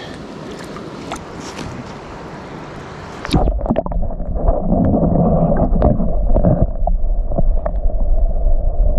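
Open-air wind and water hiss, then about three seconds in the microphone goes below the lake surface: the sound turns muffled, with a loud low rumble, gurgling and scattered clicks of water moving against the camera housing.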